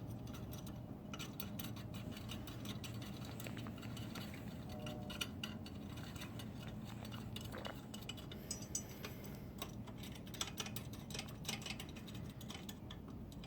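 Wrench snugging nuts onto stainless steel bracket bolts: irregular light metallic clicks and clinks of the tool against the nuts and bracket, over a faint steady low hum.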